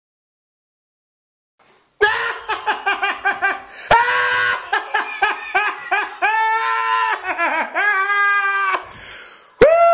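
Silence for about two seconds, then high-pitched laughing and shrieking in quick repeated bursts, broken by a few sharp clicks. Near the end comes one long cry that falls steadily in pitch.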